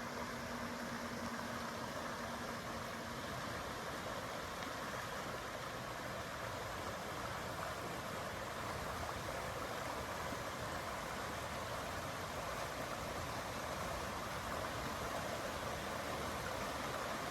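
Rushing creek water from a flash-flood surge pouring through the channel, a steady rush that grows slightly louder near the end as the water rises.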